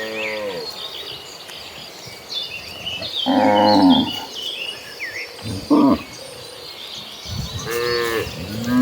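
Cattle mooing, several separate calls: one trailing off at the start, a loud one about three seconds in, a short one near six seconds, and another beginning near the end.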